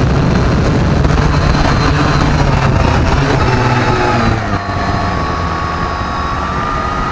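Small quadcopter drone's motors and propellers buzzing at close range as it flies low and settles into the grass. About halfway through the sound drops to a steadier whine that rises slightly in pitch.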